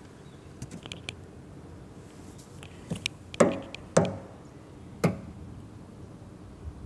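Sharp knocks and taps from handling an automotive diagnostic scan tool tablet in its rubber case: a few faint ticks, then four loud knocks about half a second to a second apart midway.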